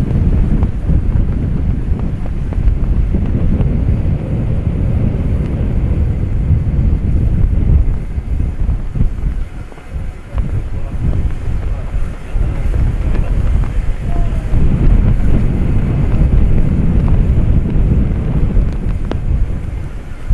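Wind buffeting the microphone: a loud, low rumble that rises and falls in gusts, easing briefly about ten seconds in.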